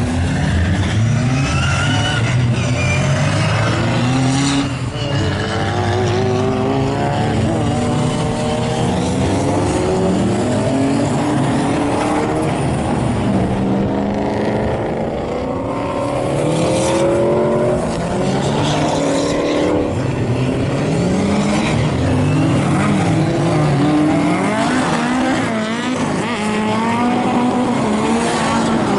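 Drift cars' engines revving hard, the pitch climbing and dropping again and again as they are driven sideways through a corner, with tyres squealing.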